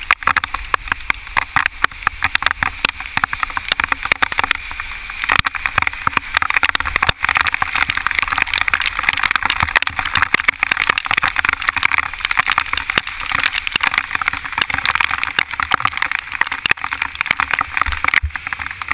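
Heavy rain hitting a camera mounted on a moving bicycle: a dense, irregular crackle of drops striking the housing over a steady hiss of rain and wet-road spray. It eases slightly near the end.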